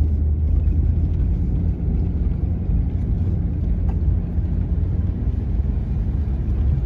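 Jeep Wrangler running as it drives slowly over a snow-covered road, heard inside the cab as a steady low rumble of engine and tyres.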